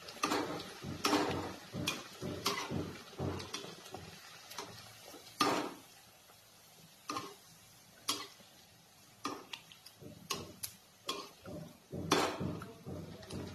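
Perforated metal slotted spoon (jhara) clicking and scraping irregularly against an aluminium kadhai while ladling hot oil over a puri deep-frying, with the oil sizzling faintly.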